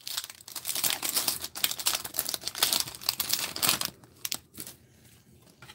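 Trading-card booster pack wrapper crinkling and tearing as gloved hands rip it open. The crackling dies down about four seconds in.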